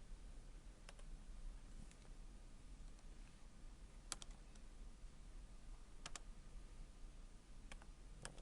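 Sparse clicks from computer input over a faint steady low hum: a single click about a second in, quick pairs of clicks near four and six seconds, and two more near the end.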